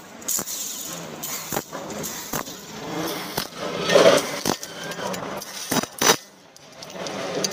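Socket wrench clicking and clinking on the clutch cover bolts of a motorcycle engine as they are tightened, in short irregular clicks with one louder clink about four seconds in.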